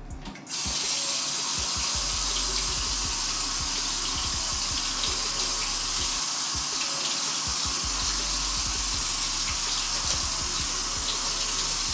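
Kitchen faucet running steadily into the sink as raw chicken is rinsed under it. The water comes on about half a second in and is shut off abruptly at the end.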